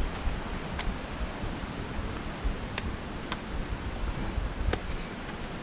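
Steady wind rumble on the microphone during walking, with four sharp clicks of trekking pole tips striking rock.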